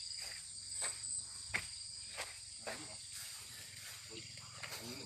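Insects chirring in a steady, high-pitched drone, with a few light knocks scattered through.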